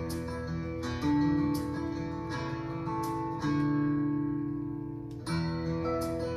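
Instrumental intro of a country song on acoustic guitar: strummed chords left to ring, a new chord struck every second or two.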